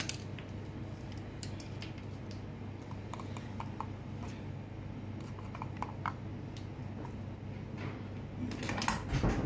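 Knife tip picking at the thick, hard shell of an ostrich egg to widen the opening: scattered small clicks and cracks of shell, busier near the end. A steady low hum runs underneath.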